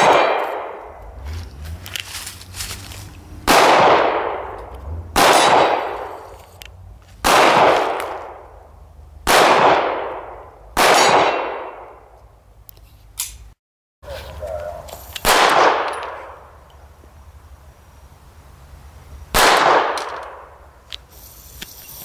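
Pistol shots: six shots, one and a half to two seconds apart, each trailing off in a long echo. After a cut, a second, small semi-automatic pistol fires twice, about four seconds apart.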